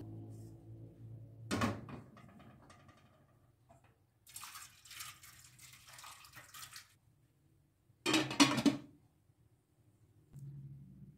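Water poured into a cooking pot for about three seconds, followed by the metal lid being set on the pot with a loud clatter. A single knock of a pot comes about a second and a half in.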